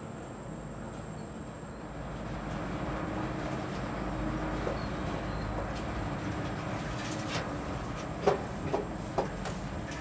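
Garrucha cable-car cabin riding along its steel cable: a steady rolling rumble of the pulley trolley on the cable, growing louder about two seconds in, with a few sharp metallic clacks near the end.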